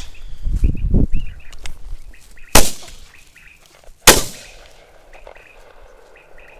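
Two close shotgun shots about a second and a half apart, fired at a flushed quail; both miss.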